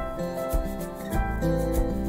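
Recorded music with sustained pitched notes over a regular drum beat.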